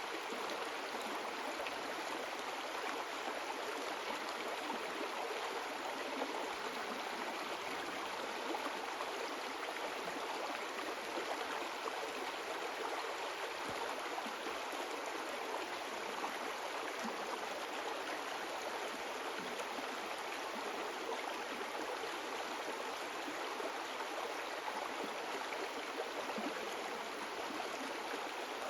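A river's flowing water rushing steadily.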